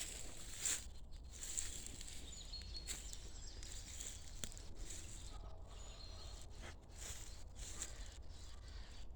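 Small birds chirping and twittering in a dawn chorus, many short high calls overlapping, over a steady low rumble.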